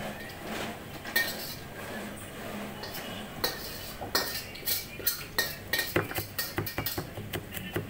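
Chef's knife chopping garlic cloves on a plastic cutting board: a few separate knocks at first, then rapid chopping from about four seconds in.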